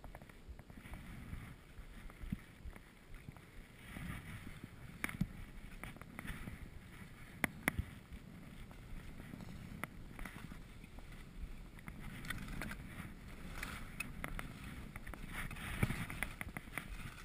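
Skis hissing and swishing through powder snow, getting louder as the skier picks up speed, with scattered sharp clicks.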